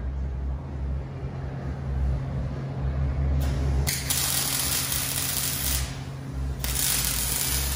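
Arc welding on a steel car frame: the arc crackles and hisses in separate runs, a brief one about three and a half seconds in, a longer one of about two and a half seconds, and another starting near the end, over a steady low hum.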